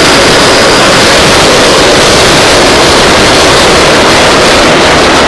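A vintage IRT Lo-V subway car running through a tunnel, heard from inside the car as a loud, steady rush of wheel and track noise.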